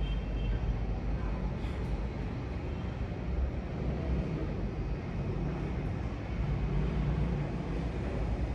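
Steady low background rumble at an even level, with no distinct knocks, music or voice standing out.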